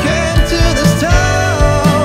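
A band's recorded song: a steady drum beat under a melody line that slides in pitch.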